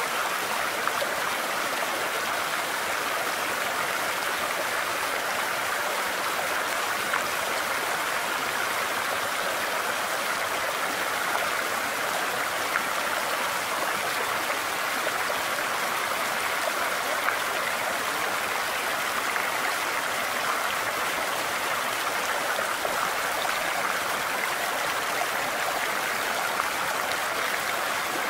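Creek water running over rocks, an even, steady rushing.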